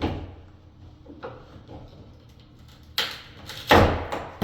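A few sharp knocks, irregularly spaced, the loudest two near the end, as the wood core left in the door's bored deadbolt hole is chipped and pried out with a screwdriver to reach a nail.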